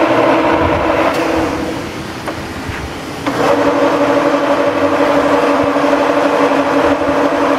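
Cincinnati No. 2 horizontal milling machine running its vertical head attachment at high spindle speed, a steady machine whine. About a second in the whine dies away, and just past three seconds it comes back up, steady again at a slightly lower pitch.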